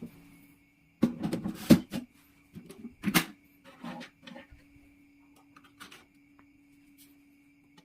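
A series of knocks and clatters, the loudest in a cluster about a second in and another near three seconds in, with smaller taps after, over a steady hum.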